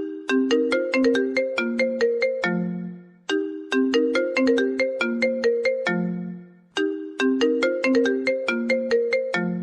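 iPhone incoming-call ringtone playing: a quick run of bright, marimba-like notes ending on a lower note that fades, repeated three times about every three seconds.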